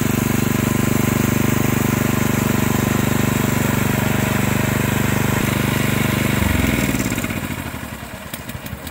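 Honda FF500 tiller's single-cylinder four-stroke engine running steadily, then shut off about six seconds in, its pitch falling as it winds down to a stop.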